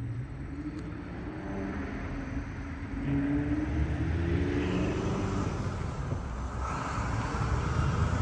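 Cars driving past: a steady low rumble of engines and tyres, with one engine's note rising a little in pitch a few seconds in.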